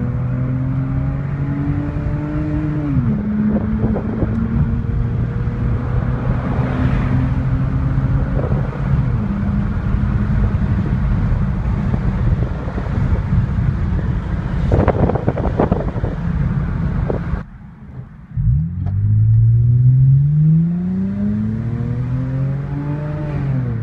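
Lexus GS300's 3.0-litre inline-six with its mufflers removed (muffler delete), heard from inside the cabin on the move: a steady exhaust drone while cruising, with rustling noise over it. After a sudden break, the engine note climbs steadily under hard acceleration for several seconds, then drops at a gear change near the end.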